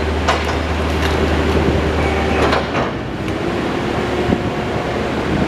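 Heavy demolition machinery's diesel engine running steadily, with scattered clanks and knocks, the loudest a cluster a little after two seconds in.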